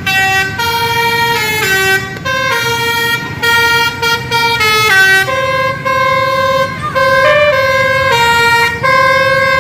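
Bus telolet horn, a multi-tone musical air horn, playing a melody of held notes that step up and down in pitch, with short breaks between phrases, over a low rumble.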